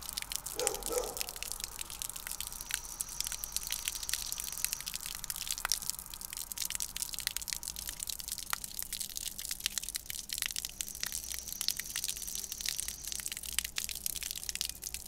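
Water spraying from a garden hose onto plants and soil: a steady, fine spatter of many small drops.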